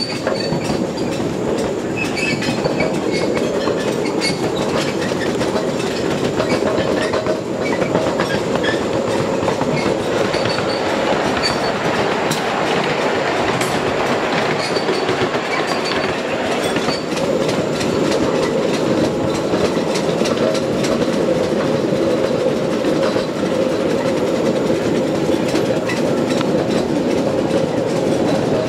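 Steel wheels of a ride-on live-steam scale train rolling along the track: a steady rumble with scattered clicks from the rail joints.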